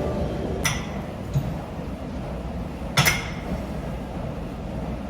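Two sharp clinks of hard objects, one about two-thirds of a second in and a louder one about three seconds in, over a steady low rumble.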